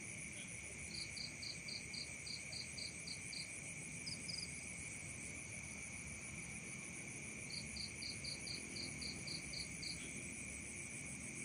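Night chorus of crickets and other insects: a steady high-pitched drone, with a pulsed chirping call of about ten notes at roughly four a second, heard twice, about a second in and again after seven seconds.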